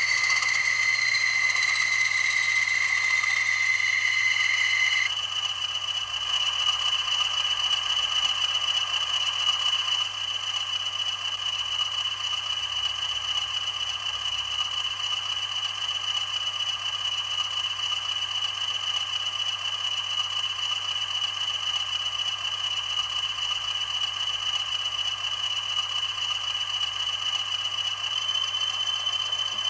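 Bachmann Class 20 model locomotive's sound decoder playing a recorded English Electric diesel engine running, through the model's small on-board speaker, with little bass and high whining tones. One high tone cuts off about five seconds in, and a steady high whine carries on.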